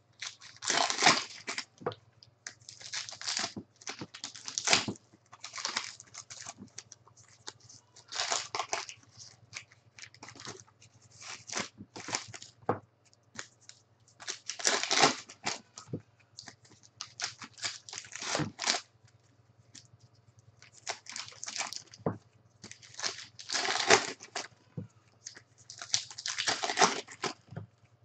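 Trading-card pack wrappers crinkling and tearing as packs are ripped open and the cards pulled out, in irregular bursts of crackle with short gaps between them.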